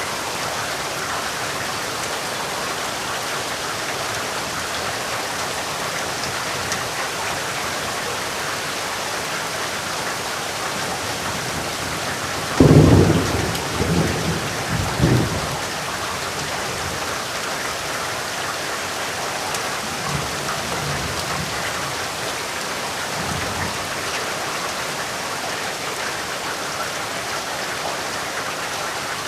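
Steady heavy rain. About halfway through, a thunderclap breaks in with a sudden loud crack and a few rolling rumbles lasting about three seconds, and fainter distant rumbles follow a few seconds later.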